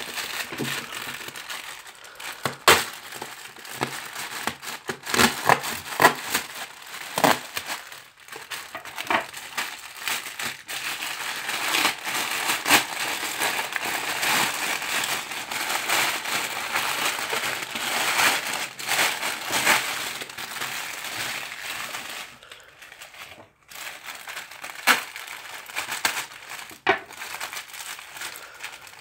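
Plastic mailer bag and the plastic wrapping inside it being crinkled and pulled open by hand: a continuous rustling crackle with many sharp crackles, pausing briefly near the end.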